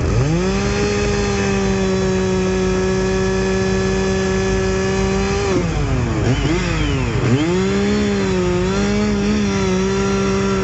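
Two-stroke chainsaw run up to full throttle and held for about five seconds, let back down briefly, then throttled up again with a slightly wavering pitch before being released near the end.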